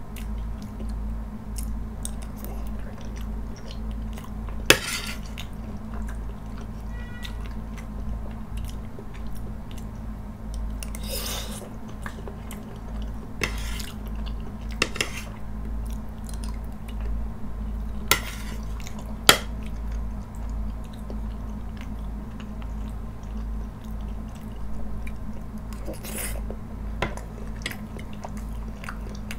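Metal fork scraping and clinking against a plate while picking up creamy penne pasta, with a few sharp clinks, and soft chewing in between. A steady low hum runs underneath.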